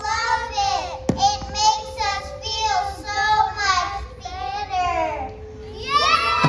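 A group of young children singing together in high voices, in short phrases, over a steady low tone, with one sharp click about a second in.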